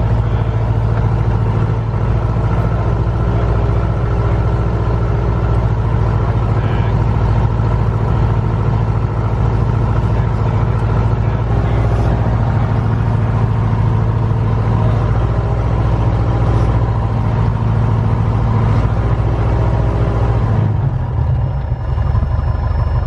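Light aircraft's piston engine running steadily during the pre-takeoff run-up (magneto and idle checks), heard from inside the cockpit with the canopy open. Near the end the note drops as the throttle comes back to idle, and the engine keeps running.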